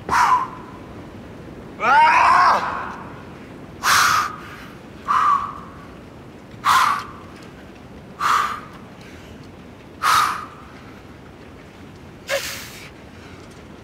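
A rock climber's forceful shouted exhalations on hard moves at the limit of his strength: about eight short, breathy screams a second or two apart. The second is longer, its pitch rising and falling.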